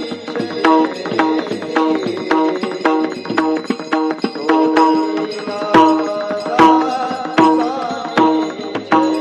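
Devotional kirtan music between sung lines: a hand drum beaten in a quick, busy rhythm over a steady held drone and a pitched melody.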